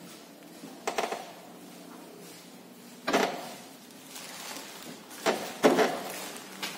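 Metal clunks and scrapes as a front suspension control arm is worked into position on the car, with four short knocks at about one, three and five to six seconds in.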